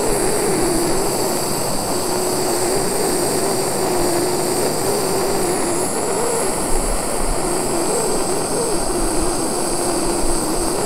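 Handheld jet torch burning steadily, a loud hiss with a low wavering note, as it heats a kanthal microcoil to close up the wraps; the flame cuts off suddenly at the end.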